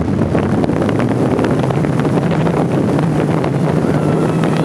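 Loud, steady wind rush buffeting the microphone of a camera mounted on a hang glider in flight, as air streams past at gliding speed.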